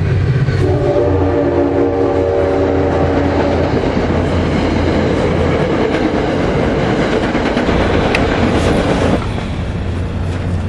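Train horn sounding a chord for about three seconds over a locomotive engine running, followed by rolling train noise that drops off suddenly near the end.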